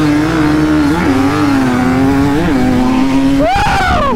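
Dirt bike engine at full throttle accelerating up a grassy hill in a drag race, its note holding high and wavering. Near the end the revs flare sharply up and drop back again.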